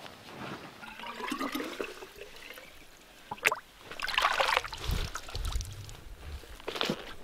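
A plastic water bottle being dipped into lake water and filled, with splashing and trickling, and water dripping off as it is lifted out. A sharp knock comes about three and a half seconds in.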